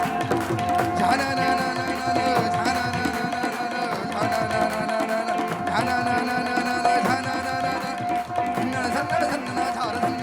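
Instrumental passage of live Rajasthani folk music with no singing: hand drums play a busy rhythm under one note held throughout, with melodic instrument lines coming in about a second in and again around six seconds.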